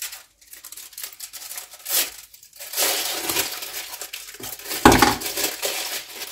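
Foil wrapper of a dark chocolate bar crinkling and rustling as it is peeled back, with small clicks of handling. About five seconds in, one sharp loud knock as a piece of chocolate is broken off into a saucepan.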